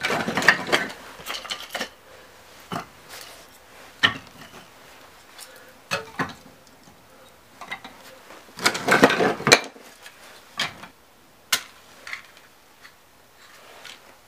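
Clinking and scraping of handled objects: a clattering burst at the start and another about nine seconds in, with single sharp clicks between.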